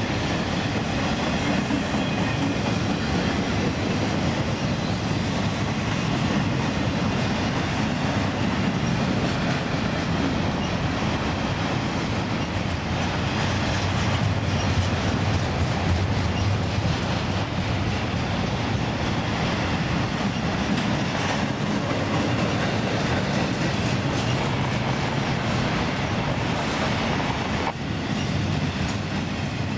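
Double-stack intermodal freight train's container well cars rolling past at steady speed: a continuous rumble of steel wheels on rail with clickety-clack over the rail joints.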